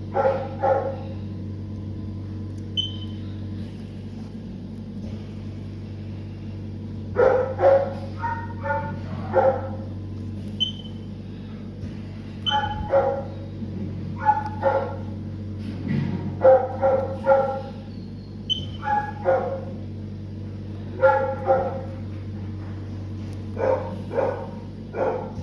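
A dog barking and yipping repeatedly in short clusters, over a steady low hum.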